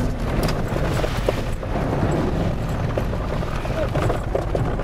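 Muddy puddle water splashing and spattering over a Jeep Rubicon's hood and windshield as it drives through, under the low rumble of the engine and tyres, heard from inside the cab.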